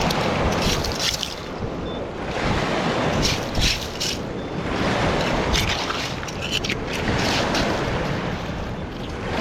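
Wind buffeting the microphone, a steady rough rumble, with several short, sharp rustling noises over it.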